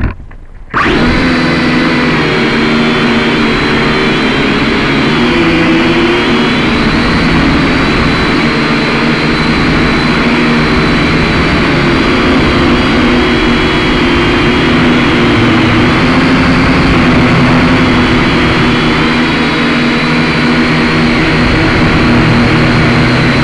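Syma X5C toy quadcopter's four small motors and propellers whining steadily, heard close up through its onboard camera, the pitch wavering slightly as the throttle changes. The sound cuts in suddenly a little under a second in.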